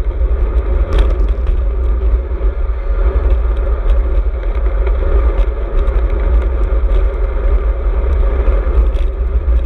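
Strong wind buffeting the microphone of a handlebar-mounted GoPro on a moving road bike, a loud, steady low rumble, with the rush of tyres on the tarmac lane beneath it. Occasional sharp clicks and rattles from the bike over road bumps, one about a second in and another near the end.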